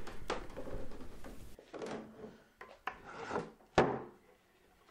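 Hand saw rip-cutting through a thick walnut board held upright in a vise, finishing a resaw cut, in several uneven rasping strokes. A sharp knock comes near the end, then the sawing stops.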